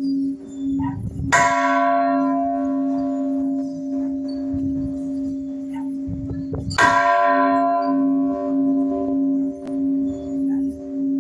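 Chapel church bells ringing. One bell tone pulses steadily about twice a second, while a bell is struck loudly twice, about five and a half seconds apart, each stroke ringing out and slowly fading.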